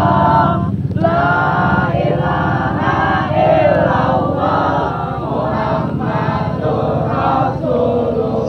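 A crowd of marchers chanting together in unison, short sung phrases following one after another, over a steady low background noise.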